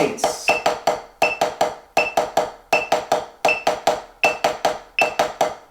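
Drumstick strokes on a 12-inch HQ RealFeel rubber practice pad: one hand, the left, plays even sixteenth notes, four strokes to each metronome click. A short metronome beep marks each beat at 80 beats per minute.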